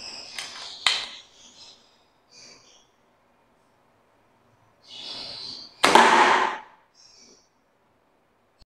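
Homemade pre-charged pneumatic air gun with a rubber-band slingshot hammer firing once, about six seconds in: a sudden sharp crack followed by a short rush of noise that fades away. A light click comes about a second in, and a short hiss comes just before the shot.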